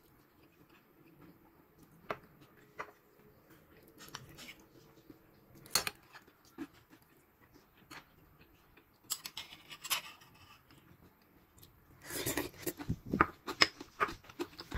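Metal spoon clinking and scraping against ceramic bowls in scattered faint clicks, with a busier run of clinks near the end.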